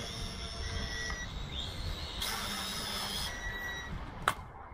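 Aden E58 Pro quadcopter drone hovering, its propellers giving a high whine that shifts in pitch in steps over a low rumble. Near the end comes one sharp hit as the drone is kicked, and the whine cuts off.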